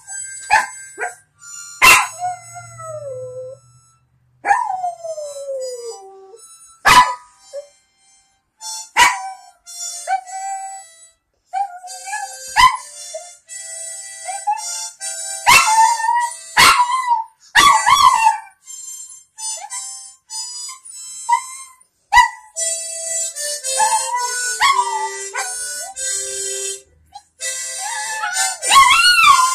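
Harmonica playing short chords and notes while a small dog howls along, with long falling howls and short sharp barks that are the loudest sounds.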